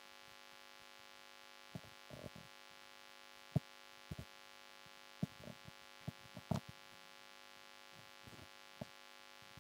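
Steady electrical hum from the microphone and sound system, broken by a handful of short clicks and knocks.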